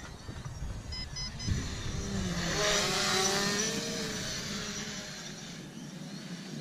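JJRC X11 Scouter quadcopter's motors and propellers whirring as it flies in close, swelling to its loudest about three seconds in with a wavering pitch, then fading. Short high beeps about a second in are its low-battery warning: the battery is nearly drained.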